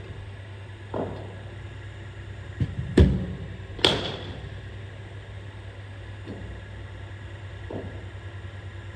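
A cricket ball delivered by a bowling machine lands with a low thud, and under a second later a cricket bat strikes it with a sharp crack. A few fainter knocks come before and after.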